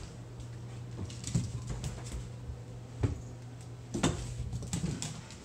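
A dog's paws and claws scrabbling and tapping on a hardwood floor as it chases a laser dot, with a few sharp knocks among them. A steady low hum runs underneath.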